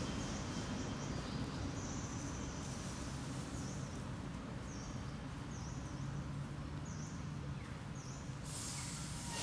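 Outdoor ambience: a bird repeats a short high chirp about once a second over steady low background noise. A brief high hiss comes near the end.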